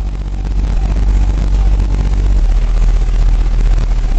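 Deep, steady subwoofer bass from a truck's competition car audio system of twenty-four 12-inch Rockford Fosgate T2 subwoofers, played at very high volume to flex the cones. It gets a little louder about a second in.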